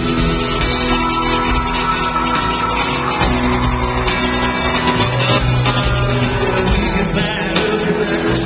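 Country band playing live with electric guitars out front, heard from the stands of a large arena.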